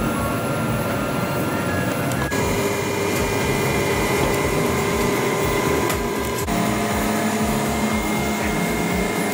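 Creality resin wash-and-cure station running: a steady motor and fan hum with a few held whining tones, which change pitch about two seconds in and again past six seconds.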